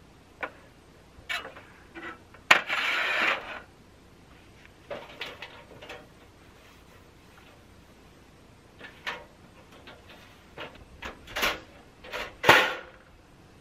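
Clicks, clanks and rattles of a portable camp stove being packed away, its metal grate lifted off and its hinged lid handled. A sharp clack about two and a half seconds in is followed by a second of rattling scrape, and another loud knock comes near the end.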